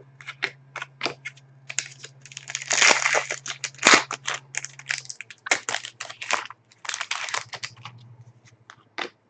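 Trading cards and a foil pack wrapper being handled: a run of quick clicks, flicks and rustles, with a denser stretch of crinkling about three to four seconds in.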